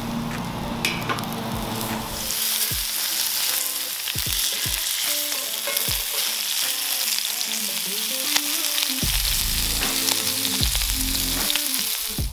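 Lamb chops sizzling and frying in hot oil in cast iron over a live charcoal fire, the sizzle thickening about two seconds in, with a few sharp clicks.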